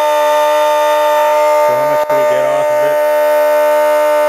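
Steady electric whine of a battery-driven DC motor spinning a Gerard Morin-style magnet-rotor generator, held at one pitch while the generator lights a bulb. There is a brief dropout about two seconds in.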